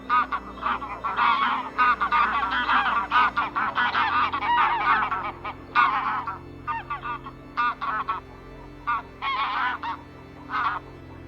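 Several birds calling in short, harsh, honk-like calls, densely overlapping for the first half and then in scattered single and paired calls. A steady low drone runs underneath.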